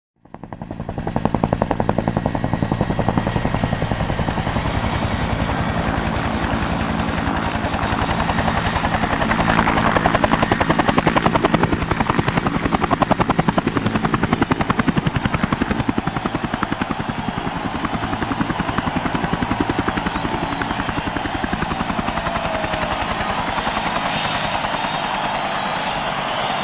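Helicopter running, its rotor beating rapidly and evenly under a high turbine whine; it fades in over the first second, and the whine slides down in pitch near the end.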